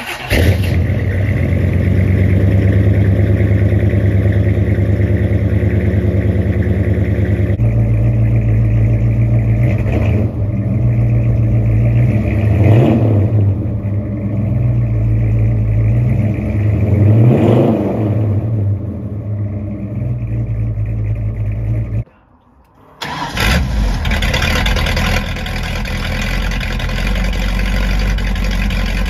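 1957 Chevrolet Bel Air engine starting and idling, revved twice, each rev rising then falling. After a one-second gap, a 1965 Ford Mustang engine runs steadily.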